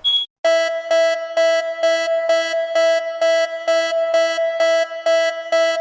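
A short high electronic beep, a brief gap, then a repeating synthesized tone pattern. A steady electronic note pulses about twice a second over a lower note that switches on and off in time with it.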